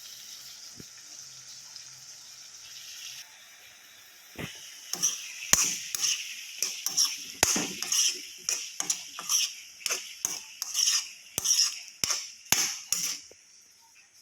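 Stuffed pointed gourds (parwal) sizzling in hot oil in a pan. From about four seconds in, a spatula knocks and scrapes against the pan again and again, about two strikes a second, as they are stirred.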